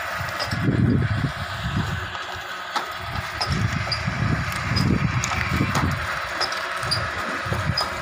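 Twin-die paper dona (bowl) making machine, driven by a 1 HP electric motor and belt pulleys, running steadily: a continuous whir with a low pulsing about twice a second as the dies press, plus light ticks and a few sharp clicks.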